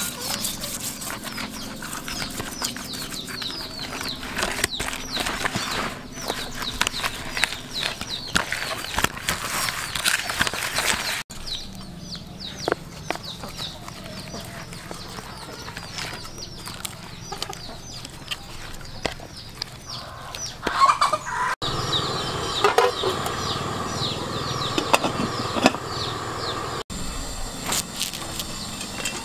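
Birds calling with many quick, short chirps, dense in two spells with a sparser stretch between them.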